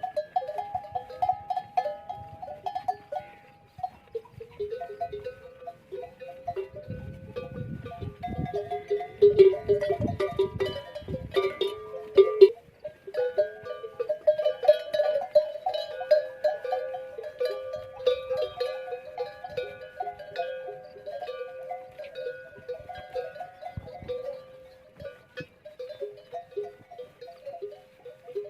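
Bells on a herd of camels ringing and clanking unevenly as the animals move, several bell tones overlapping. A low rumble runs under the bells for several seconds in the middle.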